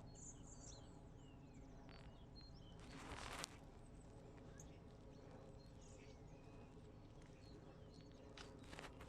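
Quiet outdoor ambience with faint, scattered chirps of small birds and a brief rustle about three seconds in.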